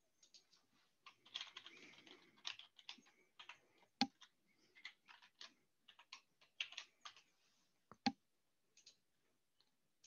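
Faint typing on a computer keyboard: a run of quick key clicks, with two sharper clicks about four and eight seconds in.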